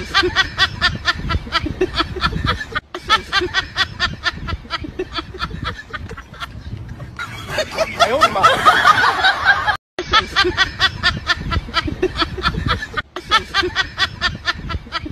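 Rapid, breathy laughter in short repeated bursts, several a second, broken by brief gaps near three, ten and thirteen seconds.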